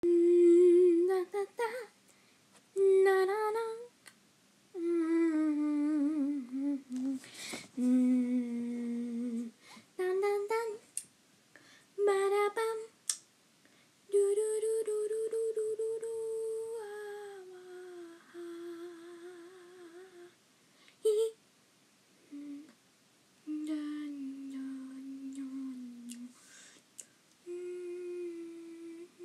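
A person humming a wordless tune in short phrases that rise and fall, with pauses between them and a few clicks along the way.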